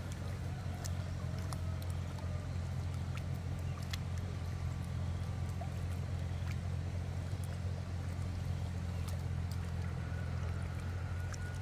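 A small engine running steadily with a low, even hum, with scattered light clicks over it.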